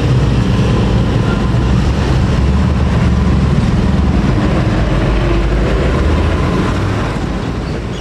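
Road traffic crossing the tracks: a heavy cargo truck's diesel engine and motorcycle engines passing, a steady low engine sound that starts to fade near the end.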